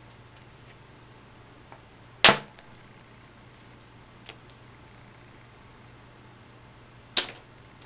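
Flint being knapped: two sharp cracks of percussion strikes on a flint core, about five seconds apart, the first louder, with a few faint ticks between.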